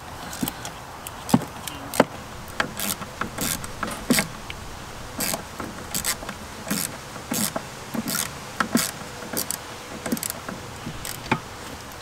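A ratchet with an 8 mm socket working on the throttle body's mounting bolts: a string of sharp metal clicks and taps at uneven spacing, a few a second.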